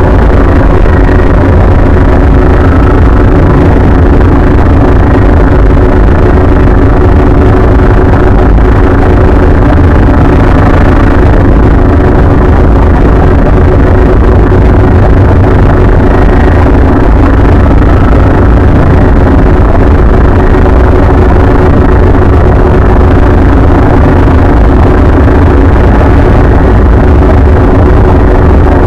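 Emergency Alert System alarm, over-amplified until it clips into a steady, very loud distorted blare with heavy bass.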